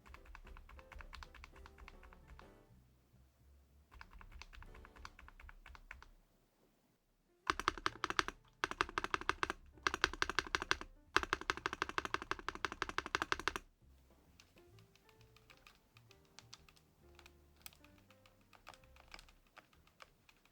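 ATK VXE V75PRO gasket-mounted mechanical keyboard with PBT double-shot keycaps being typed on in quick runs of keystrokes, in several bursts with short pauses. The loudest and busiest stretch comes in the middle, with softer typing before and after. Quiet background music plays underneath.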